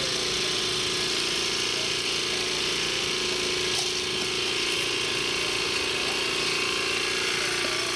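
Electric juice blender motor running at a steady high speed, a constant whining hum with a hiss over it.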